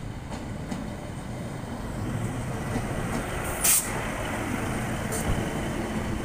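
Class 153 single-car diesel railcar passing close at low speed, its Cummins diesel engine running with a low rumble that grows louder as it draws alongside. A short sharp hiss about two-thirds of the way through, and a few faint clicks.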